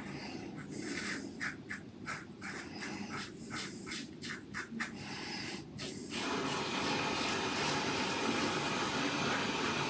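Yaqi Slope stainless-steel slant safety razor scraping through lathered three-day stubble in quick short strokes, a rapid run of crisp scrapes. About six seconds in they stop and a steady, even hiss takes over.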